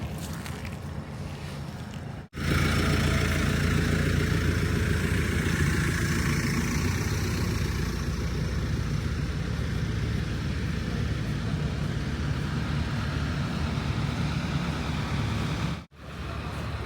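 An engine running steadily: a low, even hum with a hiss of noise over it. The sound drops out suddenly twice, about two seconds in and near the end.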